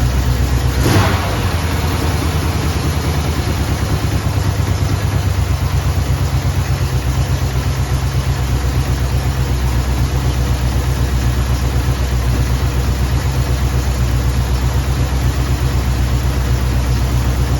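Chevrolet 283 small-block V8 with throttle-body fuel injection idling steadily, with one brief sharp click about a second in.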